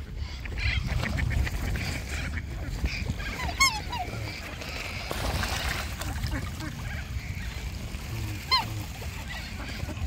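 A goose honking twice, about five seconds apart, each a short call, over a steady low background rumble.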